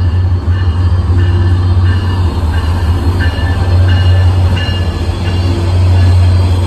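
Caltrain MPI MP36PH-3C diesel locomotive 924 passing close by with its bilevel coaches: a loud, steady low engine hum under the rumble of the train, with short high-pitched tones recurring throughout.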